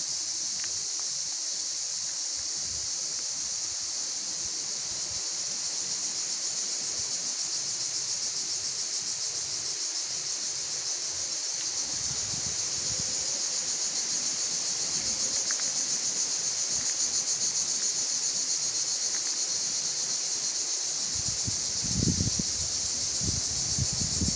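Steady, high-pitched chirring of insects, with a few low rumbles on the microphone near the end.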